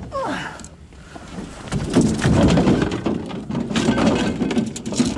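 Clattering and rustling of gear being rummaged through in a boat's storage compartment, a dense run of quick knocks and scrapes starting about two seconds in.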